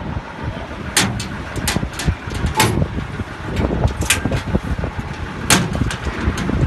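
A vehicle's low, uneven rumble, broken by about six sharp knocks or clicks.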